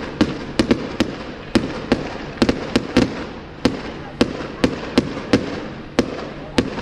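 Fireworks going off in a rapid, irregular string of sharp bangs, two or three a second, as small shells fired in quick succession burst overhead.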